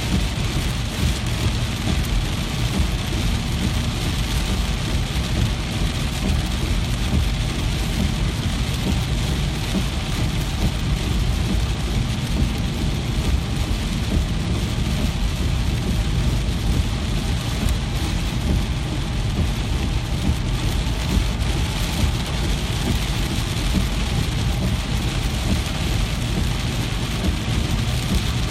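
Steady rain falling: a dense, even hiss that holds without a break, with a strong low rumble underneath.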